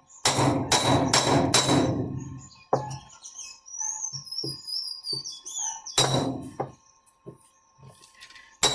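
Hammer blows on the metal wedge that locks an Electrolux LTE07 washing machine's basket to its transmission shaft, struck to free it: a quick run of about four ringing hits, lighter knocks, then a strong hit about six seconds in and another near the end. Faint bird chirps sound in the background.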